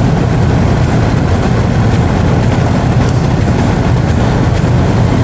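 Outdoor air-conditioning condensing unit running: its condenser fan and compressor make a steady, loud, low hum.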